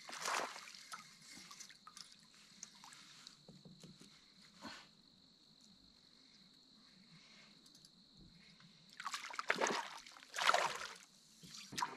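Faint sloshing and trickling of water, with a few louder swishes near the end.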